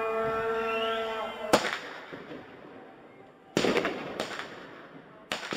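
A blaring horn holding a chord of several tones stops about a second and a half in. Then come four sharp bangs from bird-scarer (Vogelschreck) pyrotechnic cartridges, each trailing an echo: one as the horn stops, two close together about two seconds later, and one near the end.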